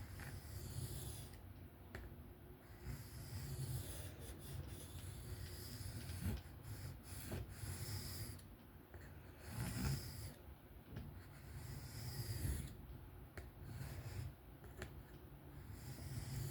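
Steel knife blade (154CM) being stroked freehand along a sharpening stone: repeated scraping passes, each a second or two long, with short pauses between them. A steady low hum runs underneath.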